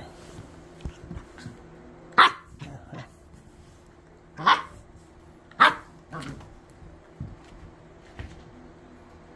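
Puppy barking three times, sharp and loud, about two, four and a half and five and a half seconds in, with a weaker bark right after the last.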